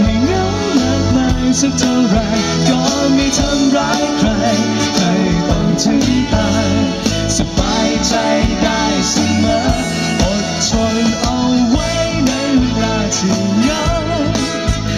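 Live band playing a pop-rock song: a man sings lead vocals through a microphone over electric bass guitar and drums.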